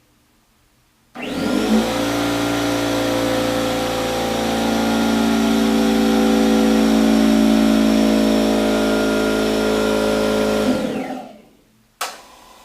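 California Air Tools 8010 oil-free, dual-piston 1 hp air compressor starting abruptly and running steadily with a hum for about nine and a half seconds, then winding down as it shuts off. A sharp click follows about a second later.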